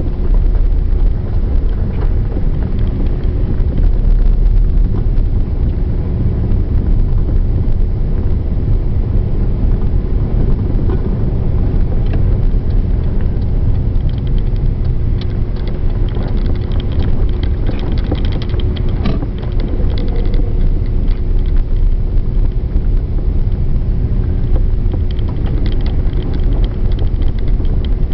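Car driving slowly, heard from inside the cabin: a steady low rumble of engine and tyres with a constant hum, and a run of light clicks and rattles a little past the middle.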